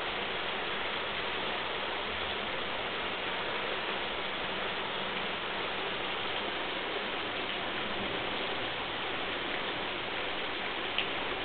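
Floodwater rushing down a concrete stormwater channel and churning around a bridge pillar, a steady, even rushing hiss, with one small click near the end.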